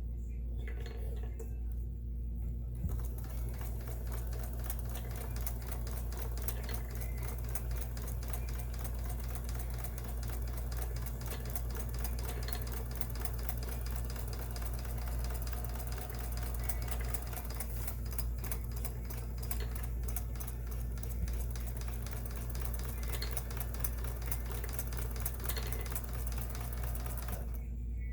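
Kenmore 158.1760 sewing machine stitching at a steady speed, with rapid even needle strokes. It starts about three seconds in and stops just before the end. The machine is sewing a cam-driven pattern stitch.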